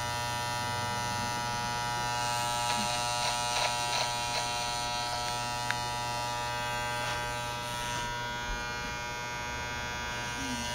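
Electric hair clippers running with a steady buzz, with a few faint short clicks about four to six seconds in.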